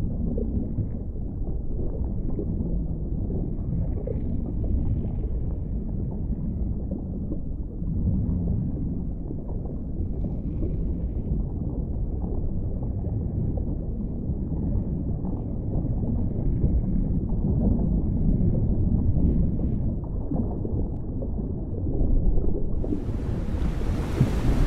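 Steady, muffled low underwater rumble with no speech or melody. About two seconds before the end, a bright rush of waves and wind cuts in over it.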